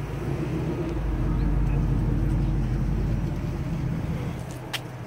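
Low car-engine rumble that grows louder about a second in, holds, then fades toward the end, with one sharp click near the end.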